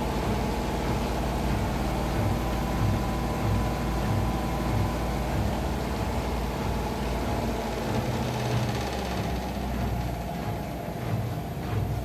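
Electrolux PerfectCare 600 front-loading washing machine with an inverter motor spinning in the last minutes of its cycle, set to 1200 rpm. It gives a steady machine hum with a regular low throb.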